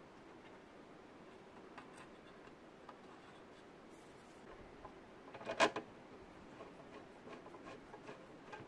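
Faint scattered clicks and light handling noise over a low steady hum, with a brief louder clatter of clicks a little past halfway.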